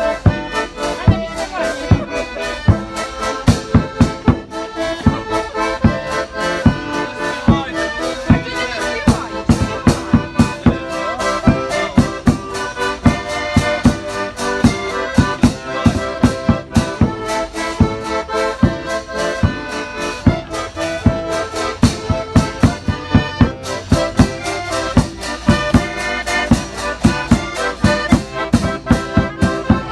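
Accordion playing a lively folk tune, with a steady drum beat under it.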